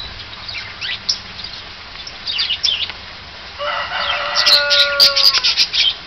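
Parrots chirping and squawking: short chirps in the first three seconds, then a longer held call with a few sharp clicks from about three and a half to five and a half seconds in.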